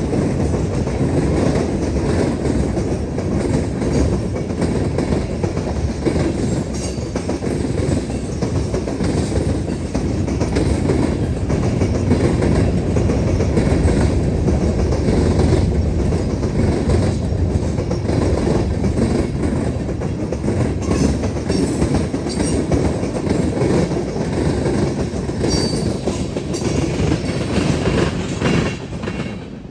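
Freight train's cars rolling past: a steady rumble of wheels on rail with repeated clicking as the wheels cross rail joints.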